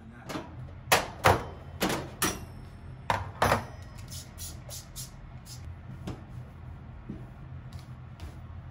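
A trigger spray bottle of foaming kitchen cleaner squirted about six times in quick succession, then fainter rubbing and light taps as a cloth wipes the gas stove's metal top.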